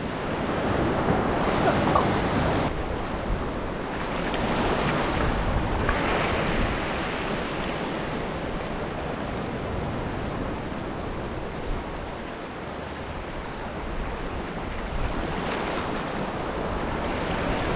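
Sea waves surging and washing over rocks, with wind buffeting the microphone. The wash swells louder twice in the first six seconds, then settles into a steadier rush.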